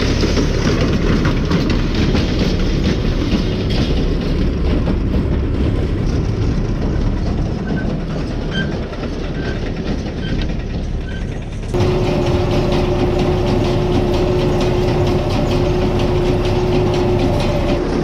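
Heavy harvest machinery running with a steady rattle. About twelve seconds in the sound changes abruptly to another engine with a steady droning hum.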